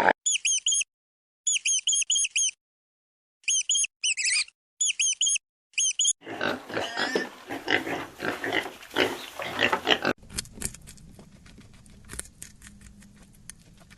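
Animal sounds: groups of short, high, squeaky chirps in quick runs for about six seconds, then about four seconds of loud, rough, noisy calls, then faint rapid ticking.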